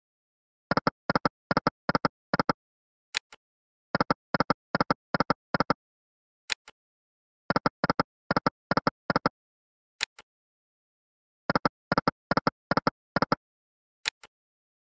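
Volcano Wealth online slot game sound effects over four spins. Each spin is marked by a single short high click, then five short pitched clacks in quick succession as the five reels stop one after another. No win jingle.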